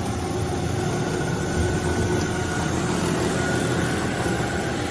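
Hyd-Mech S-23A horizontal bandsaw running with its blade turned up to a higher speed: a steady mechanical hum with a faint high whine through the middle.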